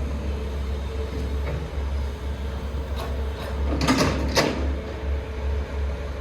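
Heavy diesel engine running with a low pulsing rumble and a steady drone above it. About four seconds in there is a short burst of metallic knocks with a rush of noise.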